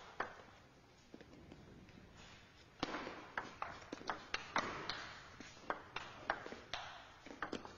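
Table tennis ball clicking off rackets and table in a rally: a quiet start with a couple of taps, then from about three seconds in a run of sharp, quick ticks.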